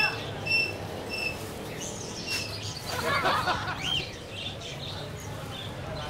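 Caged birds in a pet bird shop chirping: short, high, clear chirps repeated about every half second, then a busier patch of calls and murmur around three seconds in, over a steady low hum.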